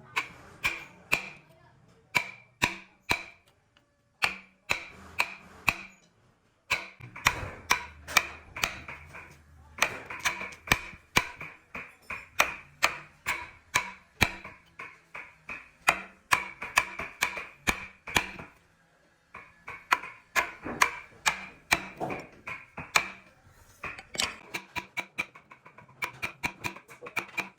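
Hammer tapping a wood chisel into wood to cut out a joint: a steady run of sharp blows, about two or three a second, each with a short ring, broken by a few brief pauses.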